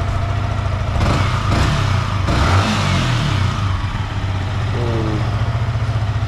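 Yamaha MT-15's single-cylinder engine idling, then revved up and down a couple of times about a second in, settling back to a steady idle.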